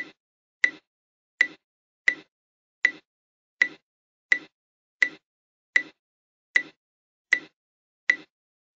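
Oticon hearing aid clicks: short, sharp clicks with a bright tone at their core, repeating evenly about once every three quarters of a second, each fading quickly into silence.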